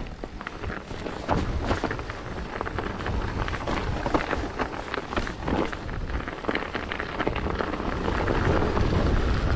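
Mountain bike on studded snow tyres riding over a rough snowy trail. A steady low rumble from the rolling, with many irregular clicks and knocks from the bike jolting over the ground.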